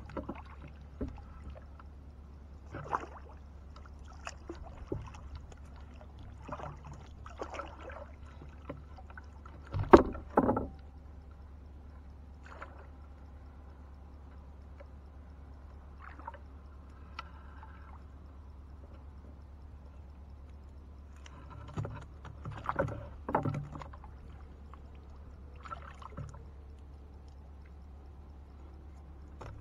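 Fishing net hauled by hand over the side of a wooden boat: water splashing and dripping off the net, with short knocks against the hull, the loudest about ten seconds in and a cluster of them around twenty-three seconds, over a steady low hum.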